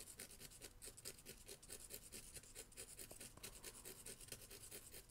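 A graphite pencil tip rubbed back and forth on a piece of sandpaper, giving a faint, quick, even scratching, several strokes a second. The point is being sharpened again after going blunt.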